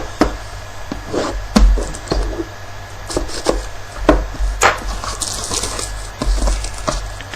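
Plastic shrink wrap being torn and crinkled off a cardboard box of hockey cards, with irregular knocks and clicks as the box is handled; a stretch of crinkling about five seconds in.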